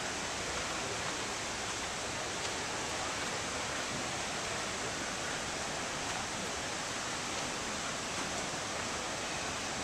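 Rushing creek water: a steady, even hiss.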